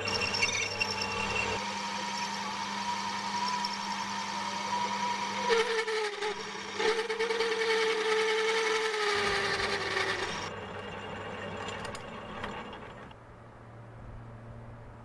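A small metal lathe runs while a 16 mm twist drill in the tailstock cuts into the spinning metal part, with a wavering whine over the cutting noise. About ten seconds in the cutting stops and the lathe winds down, leaving a faint low hum.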